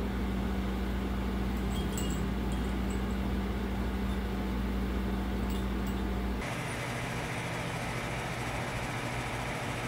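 Steady low hum with a few faint high tinkles. About six seconds in it cuts abruptly to a steady, even outdoor background noise.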